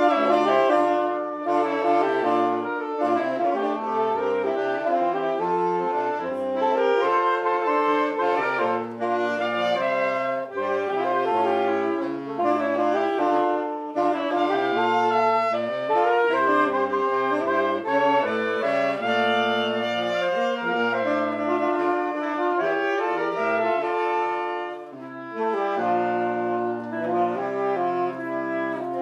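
Saxophone quartet of alto, tenor and baritone saxophones playing an arranged piece in close harmony, the baritone carrying the low line. The parts come in together just after a short break at the start, with a brief drop in loudness near the end.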